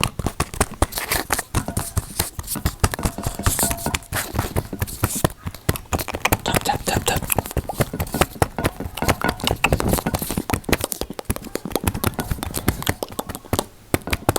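Close-microphone ASMR trigger sounds: a rapid, irregular stream of clicks and crackles, many a second.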